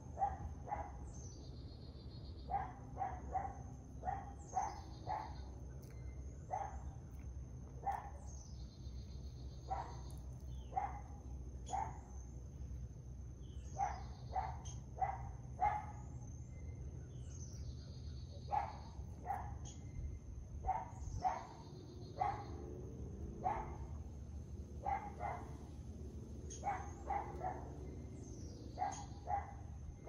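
A dog barking in short runs of two to four barks, with brief pauses between runs, over and over.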